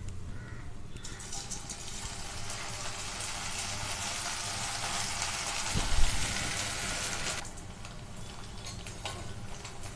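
Sago murukku dough sizzling as it is pressed into hot oil and fries, a steady frying hiss that grows louder about a second in and eases near the end. A single dull thump comes about six seconds in.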